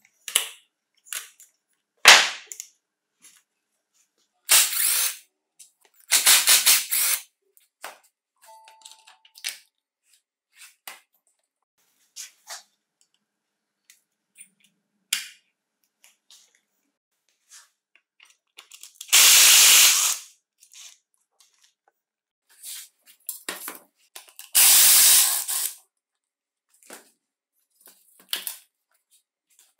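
Scattered clicks and clatters of pliers and small plastic and metal parts as a Ryobi ESK-3500 chainsaw is taken apart by hand, with a quick rattling run partway through. Two short hissing or scrubbing noises, about a second each, are the loudest sounds in the second half.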